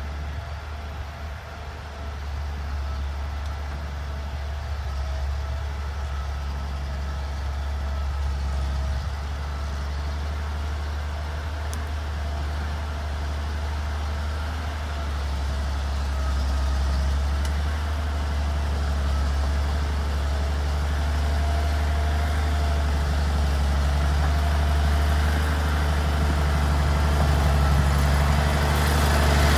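Galion 118B motor grader's diesel engine running steadily as the grader works its blade along a dirt pile, growing louder as it approaches.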